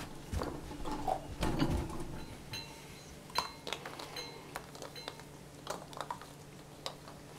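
Puppy's teeth and nose knocking a hollow plastic Easter egg about on carpet: irregular small clicks and taps, some with a short plastic ring, after a few duller knocks and rustles in the first two seconds.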